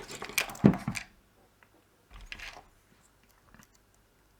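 Clicks and knocks of small parts being handled on a workbench, bunched in the first second, with a softer scrape about two seconds in.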